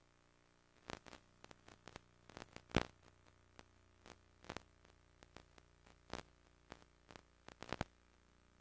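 VHS tape playback noise on a blank stretch of tape: faint irregular clicks and pops over a low steady hum and a thin high-pitched tone, the loudest pop a little under three seconds in.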